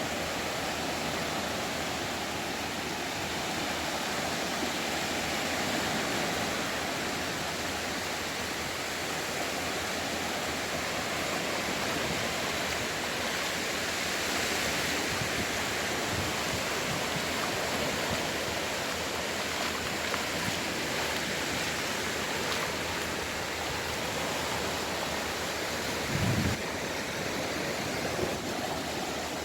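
Sea waves washing ashore: a steady rush of surf that swells and eases slowly, with a brief low thump near the end.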